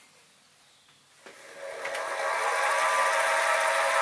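Sieg SX2P mini mill spindle motor switched on about a second in with a 5 mm drill bit in the chuck, building up over about a second and then running steadily with an even whine.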